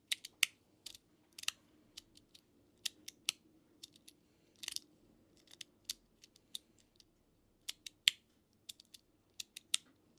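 Proxy EDC Ginger 1.5 full-metal magnetic fidget slider being played by hand: its magnetic plates snap into place again and again, giving sharp, irregular metal clicks about two or three a second.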